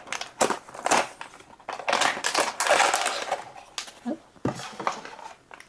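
A cardboard blind box being opened by hand and the bag inside handled: a busy run of clicks, crackles and rustles of packaging.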